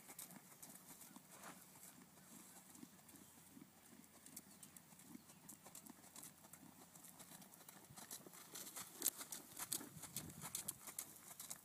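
Horse's hooves beating faintly on soft arena dirt as it lopes, a little louder for a few strides about nine seconds in.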